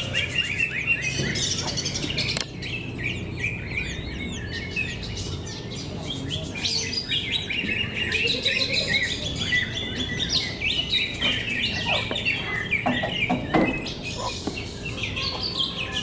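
Cucak ijo (green leafbirds) singing in their cages, a dense, unbroken stream of quick chirps and whistled phrases overlapping one another.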